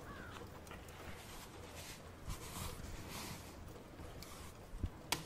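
Faint layered ambience bed: a soft rushing noise that swells in the middle, with scattered light clicks and one sharper click near the end.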